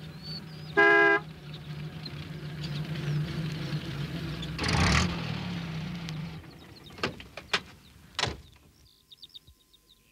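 Small van engine running, with one short horn toot about a second in and a brief rush of noise around five seconds in. The engine stops after about six seconds, and three sharp knocks follow.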